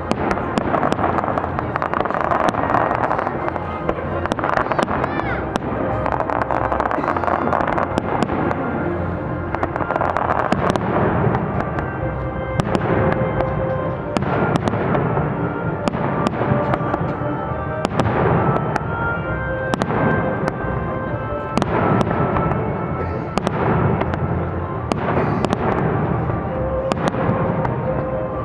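Fireworks display: a continuous run of bangs and crackling bursts throughout, with music playing underneath.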